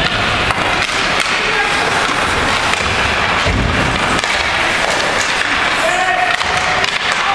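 Ice hockey play in a rink: skates scraping on the ice and sticks on the puck over a steady arena din, with a low thump about three and a half seconds in and voices calling out near the end.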